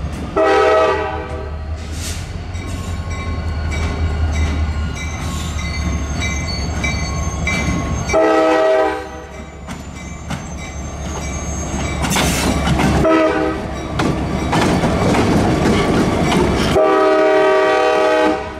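CSX diesel locomotive sounding its horn in the grade-crossing pattern, long, long, short, long, as it runs up to a road crossing. Its engine rumbles steadily beneath the blasts, with wheel and rail noise as it rolls past.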